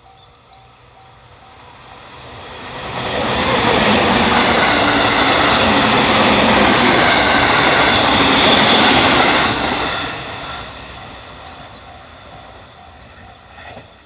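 A JR Central 313 series electric train passes over a level crossing. It grows loud about three seconds in, stays loud for about six seconds, then fades away. The crossing's warning alarm sounds in a quick repeating beat before the train arrives and again as it recedes.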